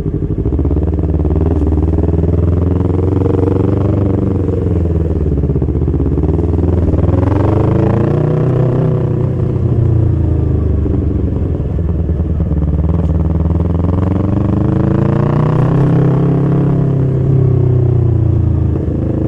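Yamaha R25 parallel-twin engine running under way. Its pitch climbs twice as the rider opens the throttle, and falls back after each climb.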